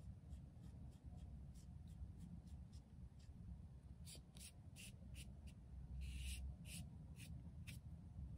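A foam paint brush stroking and dabbing paint onto paper: a string of short, faint, scratchy strokes, about two a second. They get louder about halfway through, with one longer stroke about six seconds in, over a low steady room hum.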